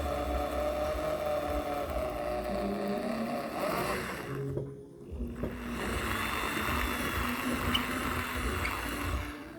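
A motor running steadily, cutting out briefly about four and a half seconds in and then running again.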